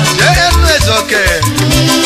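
Nigerian highlife band music: bending electric guitar lines over bass notes and shaker percussion, with a steady dance beat.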